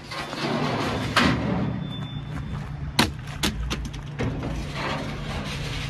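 Steel ramp extensions on a tow truck's tilting platform being dragged and knocked into place: a scraping rush for the first second or so, then several sharp metal clanks, over a steady low engine hum.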